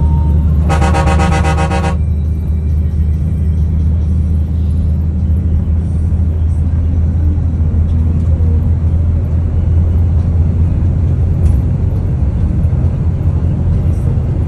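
Steady low rumble of a moving coach's engine and tyres, heard from inside the cabin. About a second in, a vehicle horn sounds once for just over a second.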